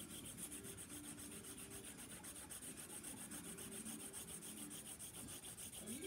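Faint, continuous scratching of a marker being rubbed back and forth over paper, with short squeaks on some strokes.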